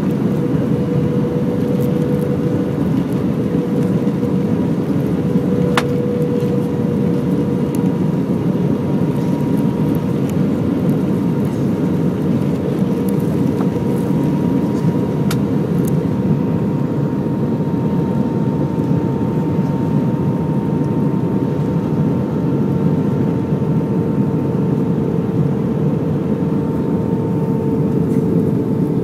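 Airbus A320 cabin noise at a window seat beside the engine: a steady rumble of engine and airflow with a held hum and a fainter, higher tone that drifts slightly down in pitch.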